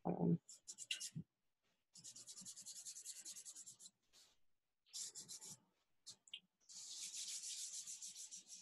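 Charcoal being scrubbed over drawing paper in quick back-and-forth strokes to lay in a dark background: three runs of rapid scratching at several strokes a second, after a dull thump right at the start.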